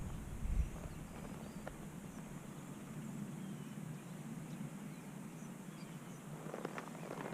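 Quiet outdoor background, then near the end a few soft hoof steps of a horse begin.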